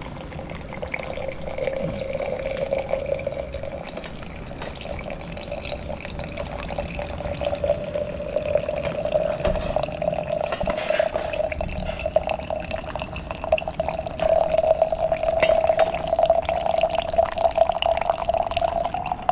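Water being poured onto coffee in a coffee strainer, with the brewed coffee trickling into the vessel below. A steady filling tone rises slowly in pitch and grows louder as the vessel fills.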